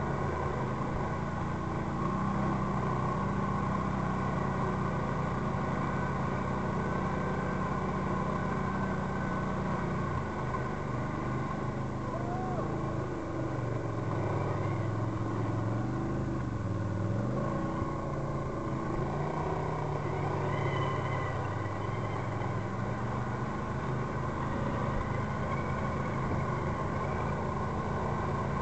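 ATV engine running under load as the quad wades through shallow water. The revs hold steady, then dip and rise again about halfway through.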